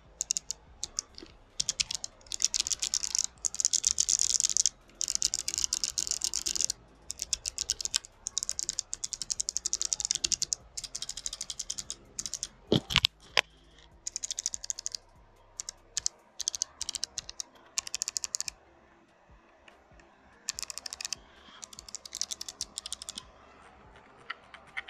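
Fast typing on a hot-swappable mechanical keyboard with bare, keycap-less Kailh Box White clicky switches: a sound test. It comes in several bursts of rapid keystroke clicks with short pauses between them, and one louder knock about halfway through.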